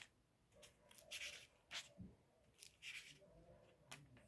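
Faint rustling of a study Bible's thin pages being leafed through, four or five short rustles in a row.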